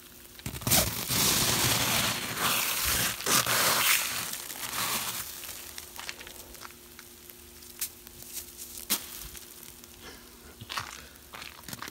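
Bare hand scooping and scraping granular snow off a car's body, a loud crunching and scraping for the first few seconds, then softer with a few small crunches and clicks.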